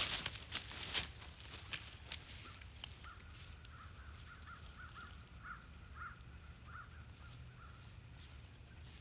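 Crunching steps and rustling in dry leaf litter, loudest at the very start and fading within about two seconds. Then a run of short, harsh calls from a distant bird or animal, repeated about twice a second and stopping near the end.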